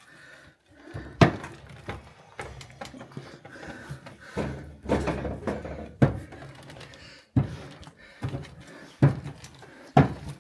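Wooden paddle beating a stiff white halva mixture in a large metal pot, knocking against the pot with irregular dull thunks, about eight in ten seconds.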